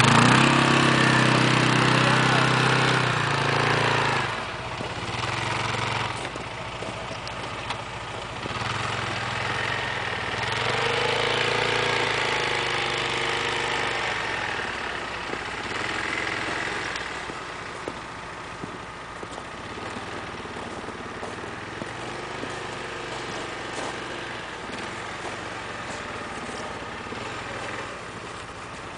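ATV on Tiger Trax rubber track conversions, its engine revving under load as it climbs a steep snow pile. The engine is loudest in the first few seconds, its pitch rises and falls around the middle, and it runs lower and steadier near the end.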